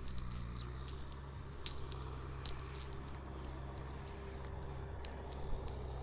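Kubota M6040SU tractor's diesel engine running steadily as it drags a blade through paddy mud, with a few short high chirps above it.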